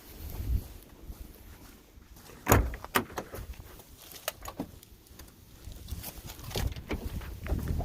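Scattered sharp clicks and knocks of hard plastic parts being handled in a truck's dashboard, the loudest about two and a half seconds in, with handling rustle between them.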